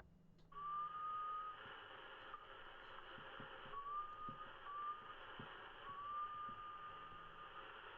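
Lower-sideband CB radio receiver hiss opening up about half a second in as the transmit key is released, with a thin whistling tone that rises slightly in pitch and comes and goes four times: a carrier or mistuned sideband signal heterodyning on the channel.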